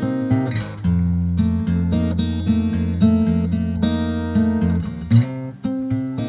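Acoustic guitar playing an instrumental intro in a steady rhythm of chords. The harmony changes about a second in, where a deep bass note comes in, and again about five seconds in.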